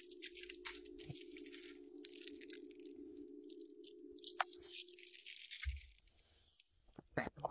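Cellophane snack wrapper crinkling in bursts as it is handled and packed into a foil-lined lunch bag, over a steady low hum that stops about five seconds in. A dull thump and a few sharp clicks follow near the end.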